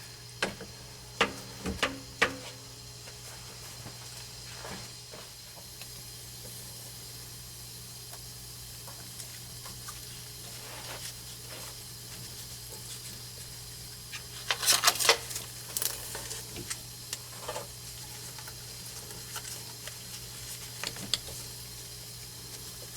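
Light clicks and clatter of hands working on threaded plumbing fittings at a water heater, with a cluster of louder clicks about fifteen seconds in, over a steady low hum and faint hiss.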